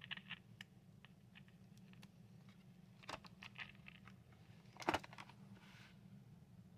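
Faint handling of a small plastic transistor radio: light clicks and rustles as a 9-volt battery is pressed into its compartment, with one sharper click about five seconds in.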